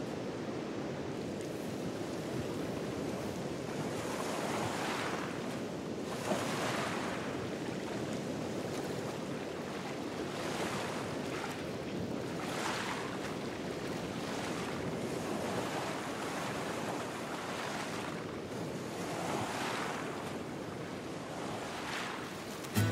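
Sea surf: small waves breaking and washing onto the shore, swelling every few seconds over a steady rush of water.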